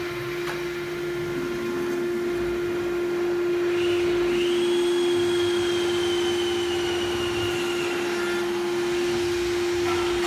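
CNC router spindle running with a steady whine. About four seconds in, a higher squeal joins it, slowly falling in pitch, as the bit cuts aluminium composite panel; it stops near the end, and another starts just after.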